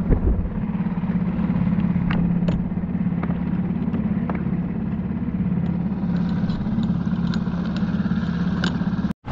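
Small boat outboard motor running steadily, with scattered light knocks and rattles, more of them in the second half. The sound drops out abruptly for a moment near the end.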